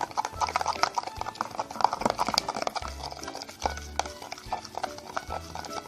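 Spoon stirring liquid soap and salt in a container, a fast run of clicks and scrapes against the container, over background music with a bass note that returns about once a second.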